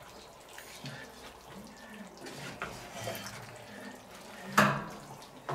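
A wooden spatula stirring chunky goulash with potatoes and broth in a cast-iron Dutch oven: soft wet scraping and squelching, with a louder clack against the pot about four and a half seconds in.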